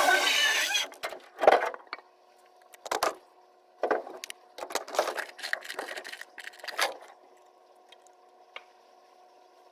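A power tool running that cuts off about a second in, followed by a series of separate knocks and clatter, then a faint steady hum.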